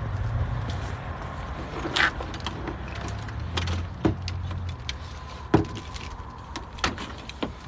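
Scattered light clicks and knocks, about half a dozen, from tools and parts being handled during a roadside wheel job, over a low steady hum.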